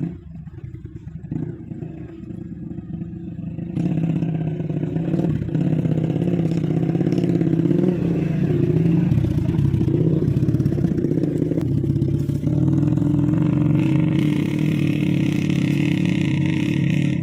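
Small petrol engine running steadily, getting louder about four seconds in, with a higher hiss added in the last few seconds.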